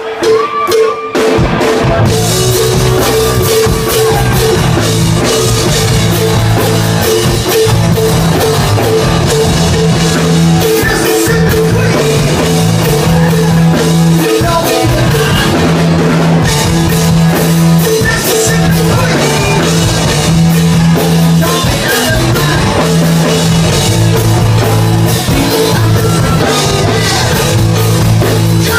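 Live rock band playing a song with drum kit, guitar and singing, coming in at full strength about two seconds in.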